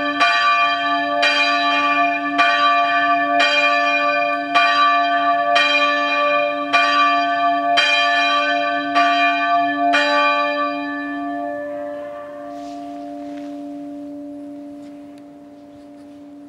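Church bell of Hakodate's Motomachi Catholic Church ringing, struck about once a second. The strokes stop about ten seconds in, and the bell's low hum note rings on and slowly dies away.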